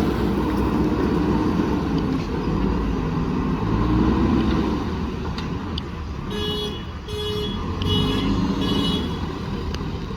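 Diesel engine of a JCB backhoe loader running under load. Partway through, about four short beeps of a horn-like signal sound in quick succession.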